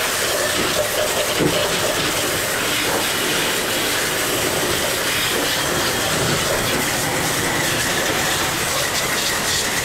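Pressure washer spraying a jet of water onto a disassembled outboard motor: a steady hiss of spray spattering on the metal, with a faint steady whine.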